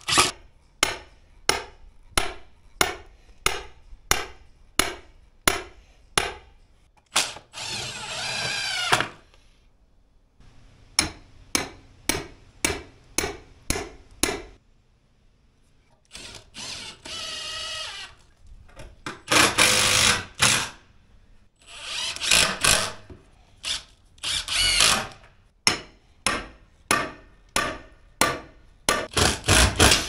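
Repeated hammer blows, about two a second, driving steel stakes into the ground beside wooden boards. They alternate with short runs of a cordless drill whirring and rising in pitch as it drives screws into the boards.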